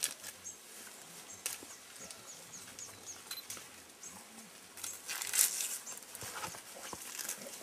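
Leaves rustling and stems crackling as mountain gorillas move and feed in dense vegetation, with a louder burst of rustling about five seconds in.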